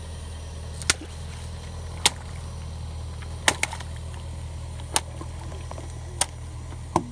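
Steady low hum of a car's engine with a string of sharp cracks, about one every second and a half, two of them close together partway through: crunchy objects snapping under the tyres.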